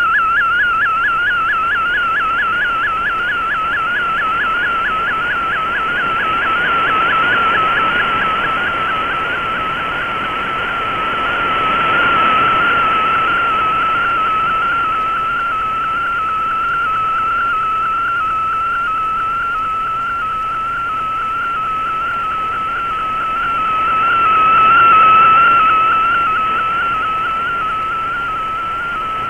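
Shortwave Radiogram MFSK picture transmission heard through a shortwave receiver: a single whistling data tone whose pitch follows the image being sent. It warbles rapidly for the first several seconds, then holds nearly steady over radio hiss, and its strength swells and fades as the signal fades.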